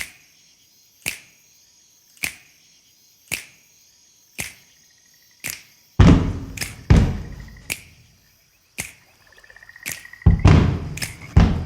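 Opening of a dance track: a sharp click about once a second, then from about six seconds heavy low bass hits come in.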